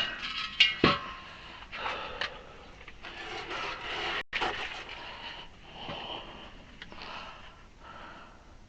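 Hand work with nippers on tire rubber: rubbing and scraping, with a couple of sharp clicks in the first second.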